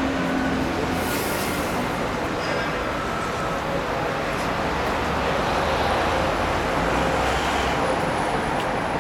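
Busy road traffic with cars, taxis and double-decker buses passing in a steady din, with a short hiss about a second in.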